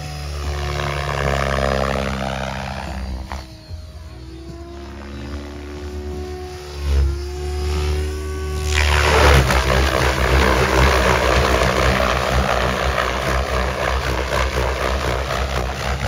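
Electric Mikado Logo 700 RC helicopter flying 3D aerobatics: rotor blades and motor whining with pitch that rises and falls as the head speed and blade pitch change. About nine seconds in it turns much louder, a dense rush of rotor blade noise as it makes hard, loaded manoeuvres low and close.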